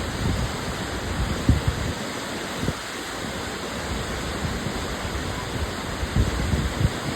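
Steady rush of whitewater on a river rapid, with low thumps of wind buffeting the microphone now and then.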